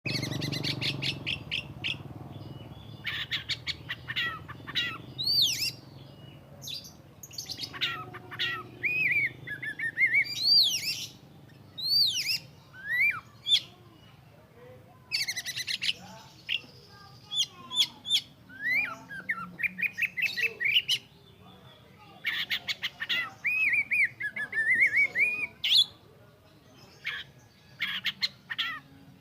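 Oriental magpie-robin singing a varied song: runs of rapid chattering notes and clear whistled notes that swoop up and down, in phrases separated by short pauses.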